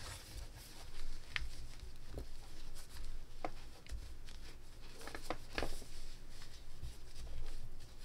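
Soft handling noise of a cotton crochet wallet being worked by hand with a small crochet hook to pull yarn ends inside. A few faint clicks and light bumps come and go.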